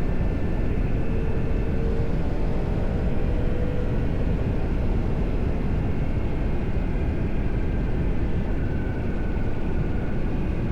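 Heavy wind rush over the rider's microphone with the Yamaha MT-10's inline-four engine under it, on its stock exhaust, as the bike is ridden hard; a faint engine note climbs slowly in the first few seconds.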